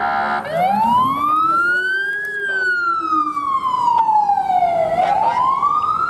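Police car's electronic siren on wail: a brief horn-like blast at the start, then the tone rises, falls slowly and begins rising again. A low rumbler tone follows the first rise beneath it and fades out about halfway through.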